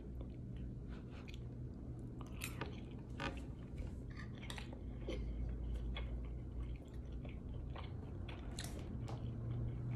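A person chewing a mouthful of ravioli with her mouth closed: quiet, irregular soft clicks and smacks, over a faint steady low hum.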